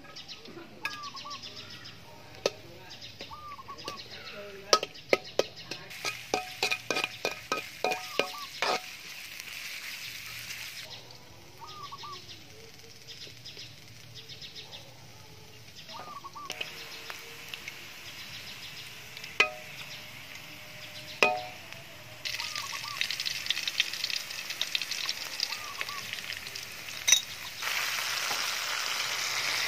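Shredded ginger frying in oil in a large metal wok, with a metal spatula clanking and scraping against the pan in a quick run of strokes about five seconds in and a few single knocks later. The sizzle grows louder in the last third. Birds chirp now and then.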